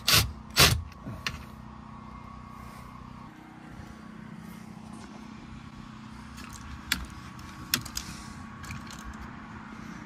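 Two short bursts of a cordless drill driving screws into a boat's throttle control mount, right at the start. After them there is a faint steady hum with a few single clicks.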